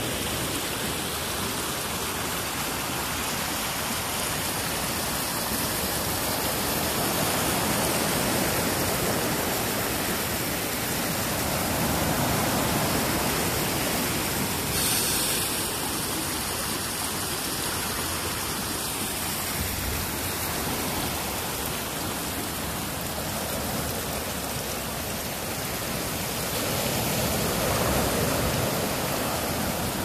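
Steady rush of a river running over rocks and sand to the sea, mixed with ocean surf washing in, the sound swelling louder now and then.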